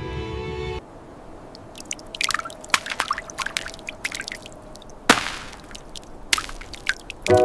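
Music stops about a second in, giving way to irregular wet clicks, drips and a few sharp cracks; the music comes back right at the end.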